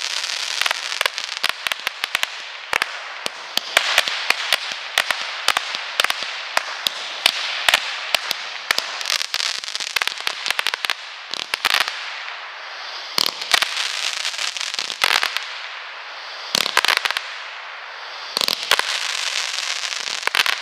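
A 96-shot angled repeater cake (Firework Fiesta) firing: a rapid string of sharp launch reports over a steady hiss of burning comets. About halfway through, the firing slows to short volleys a second or two apart as the cake nears its end.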